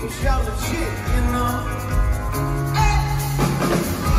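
Live pop-rock band playing through a concert PA: a male singer's voice over drums, bass, electric guitar and keyboard.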